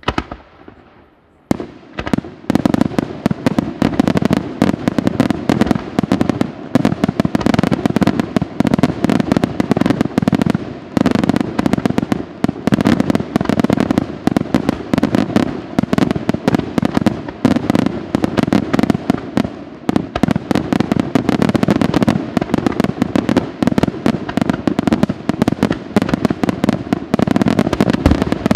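Aerial fireworks going off in a dense, rapid barrage of bangs and crackles. A single bang comes at the start, then a pause of about a second and a half, then reports follow one another continuously with no let-up.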